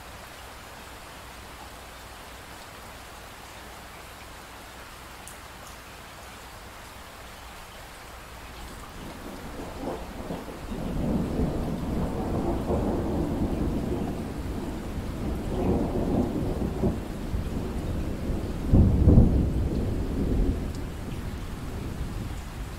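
Steady rain hiss, then a long roll of thunder that builds from about nine seconds in, swells in several waves, is loudest near nineteen seconds and fades toward the end.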